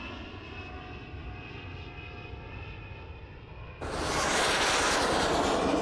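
Small propeller plane's engine droning steadily overhead. About four seconds in, a sudden, louder rush of wind takes over as a body falls through the air.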